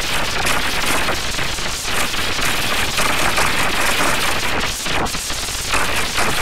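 Harsh, heavily distorted crackling noise, loud and continuous, from digitally overdriven audio.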